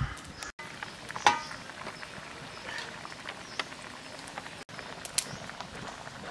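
Fish and papaya curry simmering in a karahi over a wood fire: a steady soft crackle and sizzle with small ticks. A sharp metal clink with a short ring about a second in.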